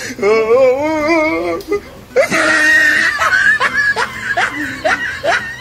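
Laughter: a wavering, drawn-out laugh, then a breathy shriek about two seconds in, followed by a run of short rising laughs a few times a second.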